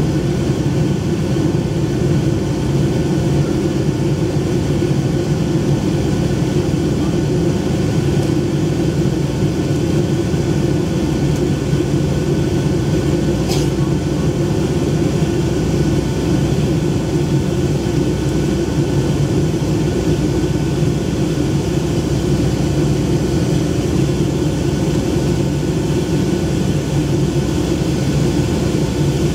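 Steady cabin noise inside a Boeing 757-200 climbing out after takeoff: a constant engine drone and rush of air past the fuselage. A brief high click sounds about halfway through.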